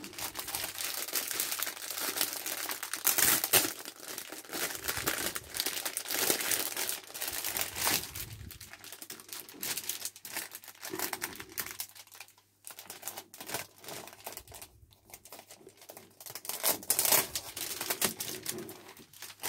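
Clear plastic packaging crinkling and rustling as it is handled and its contents are pulled out, loudest about three seconds in and again near the end.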